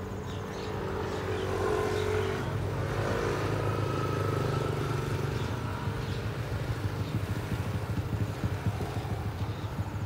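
A motor engine running steadily, growing a little louder a couple of seconds in and then easing off, with a regular pulsing in its note toward the end.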